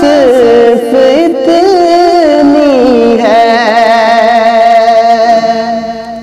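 Male voice singing a drawn-out, wordless melismatic line of a naat, the pitch winding up and down before settling on a held note that fades out near the end.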